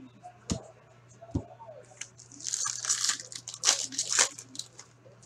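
A trading-card pack's wrapper being torn open by hand, with about two seconds of crinkling and tearing, after two light knocks in the first second and a half.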